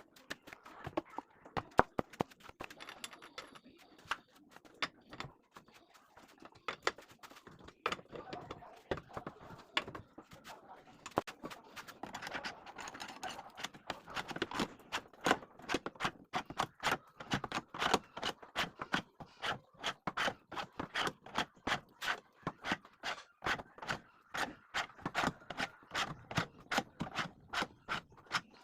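Metal hand tools working on a car wheel during a tyre change: scattered clicks and scrapes at first, then from about halfway a steady ratcheting click, two to three a second, as a jack or wheel brace is worked.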